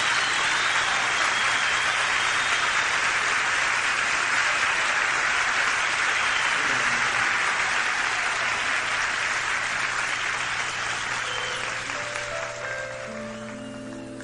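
Large concert audience applauding, dying away over the last few seconds as slow, held instrumental notes start.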